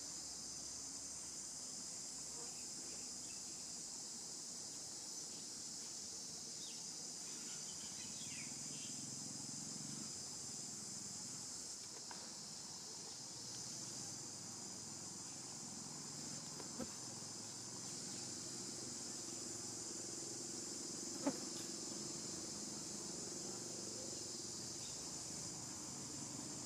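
Steady, high-pitched drone of an insect chorus, with two short sharp clicks in the second half.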